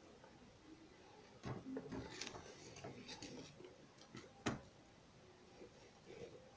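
Faint clicks and light handling knocks, bunched together for about two seconds, then one sharper click.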